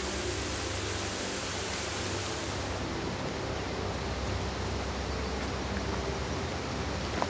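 Mountain waterfall and stream water rushing in a steady hiss, turning duller about three seconds in.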